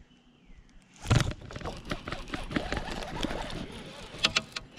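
A small hooked bass splashing and thrashing at the surface beside a kayak as it is reeled in on a baitcasting reel. The noise starts suddenly about a second in and keeps up with many sharp splashes and clicks, a few louder ones near the end.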